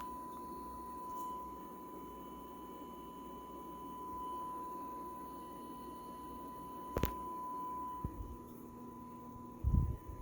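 Steady 1 kHz test tone from the RCA 9289 tube power amplifier under test, over a low background hum. A sharp click comes about seven seconds in, and dull low thumps follow near the end.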